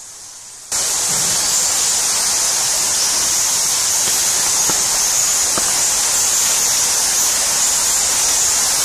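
A loud, steady hiss that cuts in abruptly about a second in and holds evenly, strongest in the high range, with a few faint clicks.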